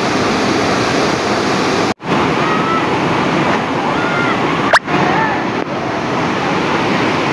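Rushing river water, a loud steady churning close to the microphone as it moves through the current. The sound drops out for an instant about two seconds in, and a short, sharp rising swish comes just before five seconds.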